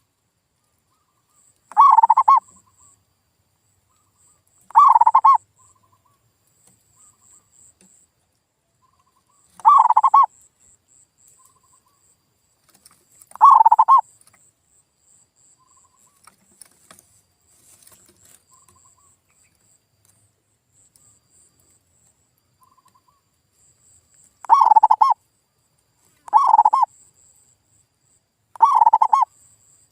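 Male zebra dove (perkutut) cooing in short, loud, repeated phrases, seven in all. The phrases are spaced a few seconds apart, with a pause of about ten seconds in the middle, then come faster near the end. It is a lure recording of the bird's song, played to get other doves to answer.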